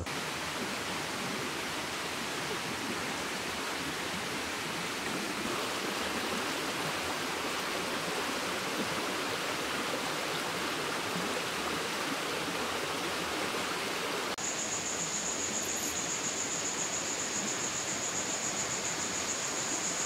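Steady rushing of a flowing stream. A steady high-pitched whine joins it about two-thirds of the way in.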